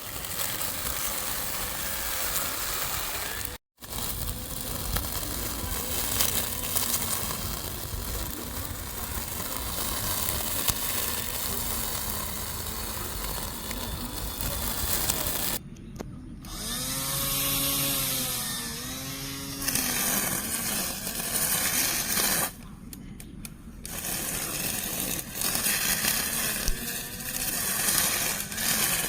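Small electric lawn mower's motor running in a few short clips, broken off abruptly several times. Partway through, the motor's pitch rises and falls a few times.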